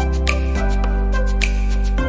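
Background music: soft, new-age-style instrumental with sustained bass chords that change about every second and a light steady beat.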